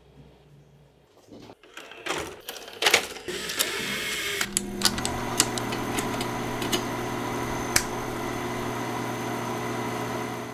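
A VHS cassette loading into a VCR: a run of clicks and clunks from the tape mechanism, then a steady hum and hiss with a thin whine and occasional ticks as the tape plays with static on the screen.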